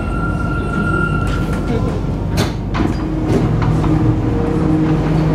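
Alstom NS-16 metro train running in a tunnel, heard from inside the driver's cab, slowing for a station. A steady high whine stops about a third of the way in, a few sharp clacks follow about halfway, and then a low steady hum.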